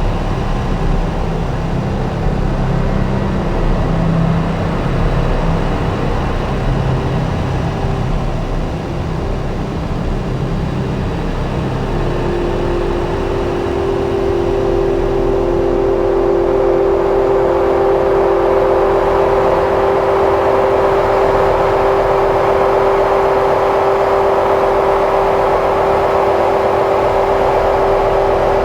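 Electronic drone from a Strega synthesizer and a Wingie, layered with looped drones. A low steady hum gives way about twelve seconds in to a strong held higher tone, over a grainy noise texture that slowly builds.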